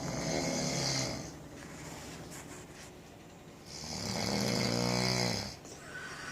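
A man snoring: two long snores, one at the start and one about four seconds in, each lasting about a second and a half.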